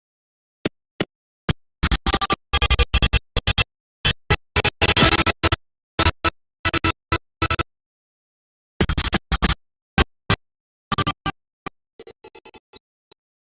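Online slot game sound effects and jingles in short, clipped bursts with dead silence between them. The bursts come thick and fast for several seconds, with a longer one midway, then stop for about a second before a few more and some fainter ones near the end.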